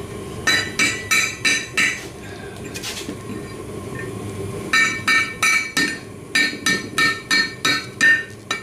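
Ball-peen hammer striking a red-hot steel bar over the horn of an anvil, each blow giving a bright metallic ring, while the bar's end is bent into a U-shape for a hook. A quick run of five blows, a pause of about three seconds, then steady blows about three a second from about five seconds in.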